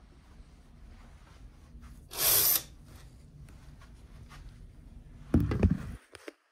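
Handling noises from opening up a ferry cabin onto its balcony: a short sliding swish about two seconds in, then low rumbling with a few knocks near the end.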